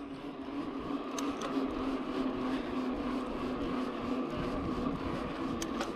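Rurok Cordillera mountain bike coasting fast down a paved road: a steady rolling hum from the tyres and drivetrain, mixed with wind rushing over the microphone.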